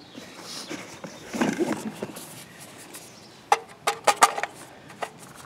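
Magazine being worked into the magazine well of an ATI Galil ARM replica rifle: a low rough noise about a second and a half in, then a quick cluster of sharp clacks as the mag is rocked and pushed home. The magazine is a very tight fit and barely latches.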